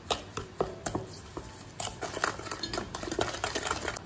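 Wooden spoon stirring mashed banana in a stainless steel bowl: a run of quick, irregular taps and scrapes of the spoon against the metal.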